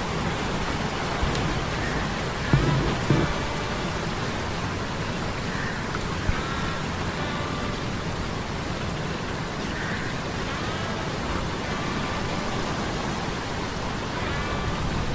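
Sea storm sound-effect ambience: steady rain and storm noise, with a few low thumps of thunder about three seconds in. Short wavering tones come back every few seconds over the storm.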